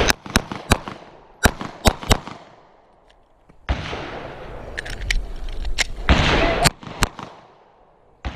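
Compact back-up semi-automatic pistol firing in two strings: six quick shots in about two seconds, then, after a pause filled with a rush of noise, three more shots near the end.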